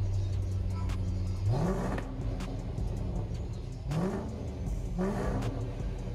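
Range Rover engine through a straight-piped custom catback exhaust, idling steadily, then blipped three times. Each rev rises quickly in pitch and drops back to idle.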